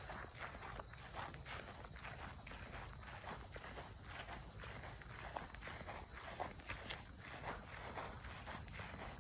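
A steady, high-pitched chorus of crickets, with the crunch of footsteps on the trail at a walking pace.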